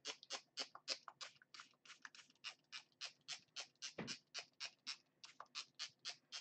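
Trigger spray bottle spritzing water in a fast, even run of short faint hisses, about four squirts a second, wetting a marker-coloured coffee filter so the ink spreads.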